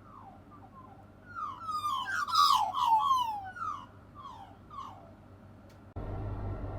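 Several birds calling: repeated falling, slurred calls that build into a loud overlapping chorus about two seconds in, then thin out. Near the end a steady rush of noise starts abruptly.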